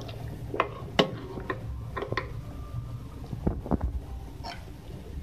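Serving spoon clinking and knocking against the metal cooking pot and a glass bowl as chicken and potato curry is ladled out, about eight sharp clinks, the loudest about a second in, over a steady low hum.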